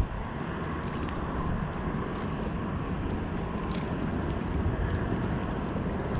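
Steady wind rumbling on the microphone, with small waves lapping at the rocky shoreline.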